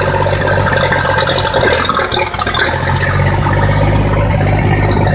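Buda six-cylinder spark-ignition engine of a Bucyrus Erie 24L drilling rig running steadily, with a busy mechanical clatter over a low, even engine note, close to its exhaust. It runs pretty good after sitting unused for a few months.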